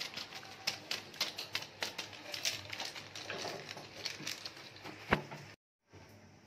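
A spice sachet being tapped and shaken to empty masala powder over mutton in a pressure cooker: a quick, irregular run of light ticks and clicks, with one louder knock about five seconds in. The sound cuts off abruptly near the end.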